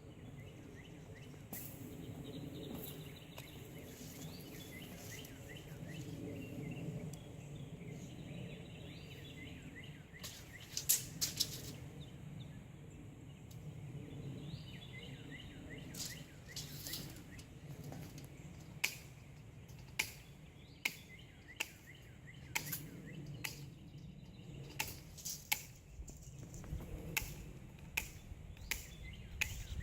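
Small birds chirping over a low background hum, with a run of sharp clicks or taps in the second half.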